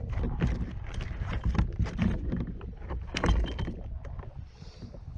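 Irregular knocks and thumps on a fishing kayak, several a second, thinning out near the end.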